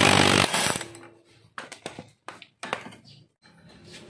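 Cordless impact wrench hammering on the front pulley nut of a scooter's CVT, stopping about half a second in. It is followed by scattered light metallic clicks as the nut and pulley parts are handled.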